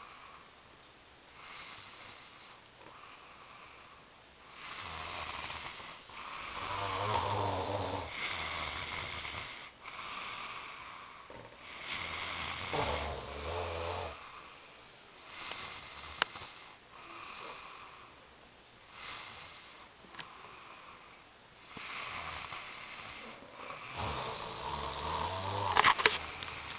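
A sleeping person snoring in slow, uneven breaths, each a second or two long. The louder snores have a low rattle, and the loudest comes near the end. A few sharp clicks are heard along the way.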